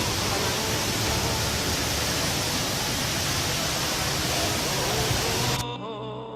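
The HSBC Rain Vortex, a 40-metre indoor waterfall, pouring as a steady, even rush of falling water. Near the end it cuts off suddenly and soft music begins.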